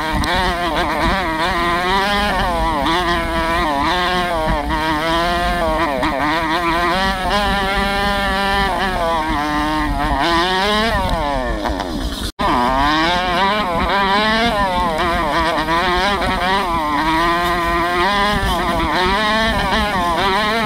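Single-cylinder 125cc four-stroke dirt bike engine ridden hard on a trail, revving up and down every second or two as the throttle is worked. The revs fall away steadily before the sound cuts out for an instant about twelve seconds in, then the engine picks up again.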